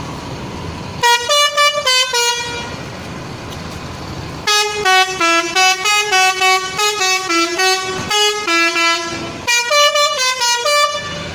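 Telolet bus air horn playing a tune of short, stepping notes in three bursts: a brief phrase about a second in, a long run from about four and a half seconds, and a quick last phrase near the end.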